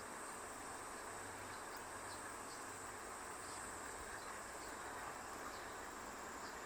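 Steady high-pitched drone of insects, with a few faint short chirps scattered through it.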